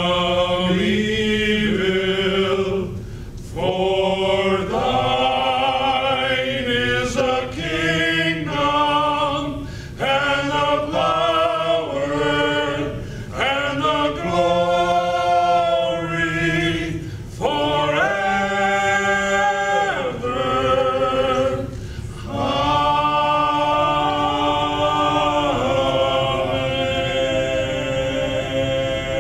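Five men singing a cappella in harmony, in held phrases with short breaks between them, ending on a long sustained chord.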